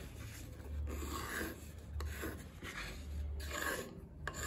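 Pencil compass drawing a circle on a plywood disc: the pencil lead scratches over the wood in a series of short scratchy strokes.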